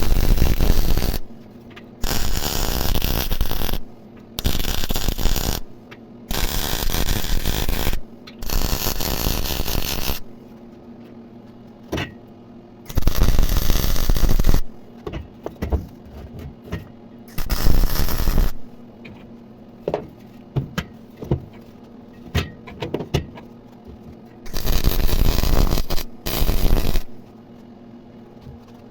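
Electric welding on thin steel, laid down as a string of short welds: bursts of arc crackle lasting one to two seconds, about five in the first ten seconds and a few more later, with small metallic clicks and taps in the pauses between them.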